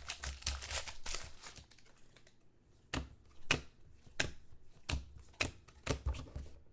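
A series of light, sharp clicks and taps: a quick cluster at first, then single clicks about twice a second.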